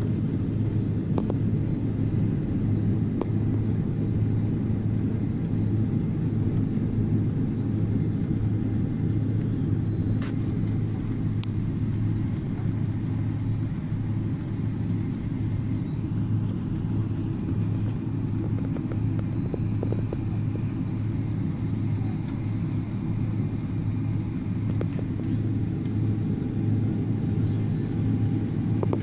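Steady low rumble of engines and airframe heard inside the cabin of a Boeing 777-200 as it taxis, with a few faint clicks from the cabin.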